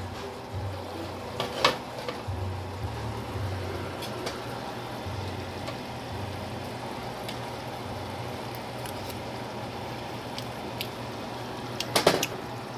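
Cookware being handled over a pot of cooked rice on the stove, with a sharp metal clink about a second and a half in and a quick cluster of clinks near the end, over a steady low hum and faint hiss.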